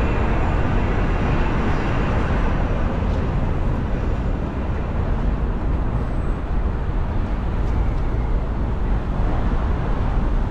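Steady wind and traffic noise heard from a moving bicycle: wind rushing over the microphone and cars driving in the lane alongside.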